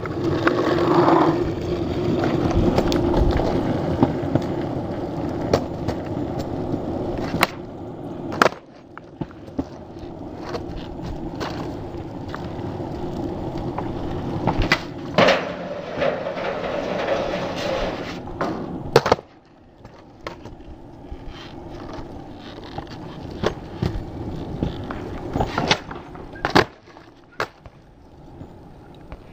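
Skateboard wheels rolling over concrete, broken by a dozen or so sharp clacks of the board popping and landing tricks. In the middle a clack is followed by a few seconds of the board grinding along the edge of a metal bleacher bench.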